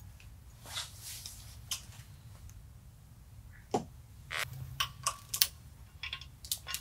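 Light metallic clicks and clinks of a bolt being handled and threaded by hand into the centre of a mud motor transmission's pulley, a few scattered early and a quick run of them in the second half, over a low steady shop hum.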